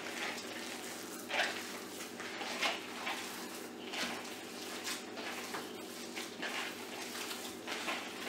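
Hands kneading raw ground beef mixed with egg and breadcrumbs in a plastic bowl: soft, wet squishing about once a second, over a steady low hum.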